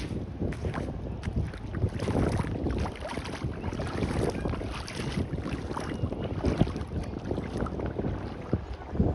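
Sea water sloshing and waves washing at the shore, with gusts of wind rumbling on the microphone.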